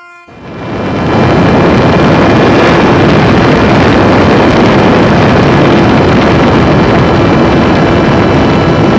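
Heavy wind rush over the onboard camera's microphone on a home-made RC Su-27 model jet in flight, with the motor's steady drone underneath. It rises over about the first second and cuts off abruptly at the end.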